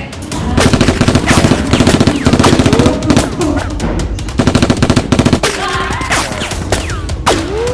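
Several bursts of rapid automatic gunfire, a fast string of sharp shots in each burst, in the kind of sound effect laid over a Nerf-war skit.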